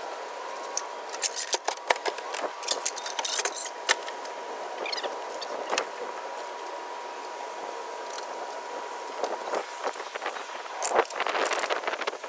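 Metal buckles and straps of moving jacks clinking and rattling as they are fitted around a vending machine: irregular clicks and jangles, with a busier run of rattling near the end. A faint steady high tone runs underneath until shortly before the end.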